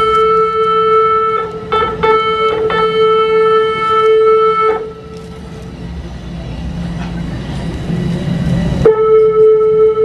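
Train horn sounding one steady note, broken by a few quick breaks and held again until about five seconds in. Then there is only a low rumble, and the horn blasts again near the end.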